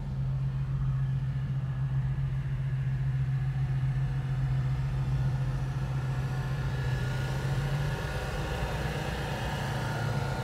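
Car engine running steadily at low revs, heard from inside the cabin as a constant low hum while the car rolls slowly.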